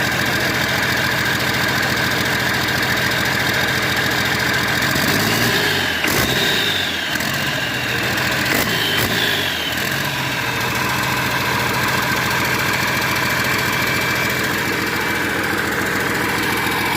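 Caterpillar 320D2 excavator's diesel engine running steadily at idle, its tone wavering for a few seconds in the middle.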